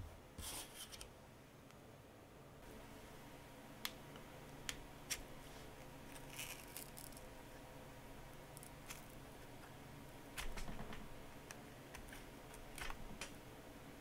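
Faint clicks and short scrapes as a plastic opening pick is worked into the seam between a Samsung Galaxy S22 Ultra's glass back and frame, prying the back cover loose. The longest scrape comes about ten and a half seconds in.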